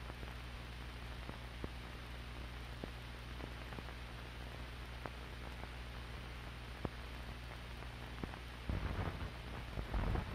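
Noise of an old analog film or tape transfer with no soundtrack content: a steady hiss over a low hum, with scattered clicks and pops. From about nine seconds in, louder irregular crackling rumble comes in.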